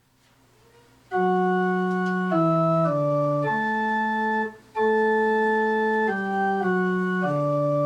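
Church organ playing the introduction to a sung psalm: a slow phrase of held chords that begins about a second in, with a brief break about halfway.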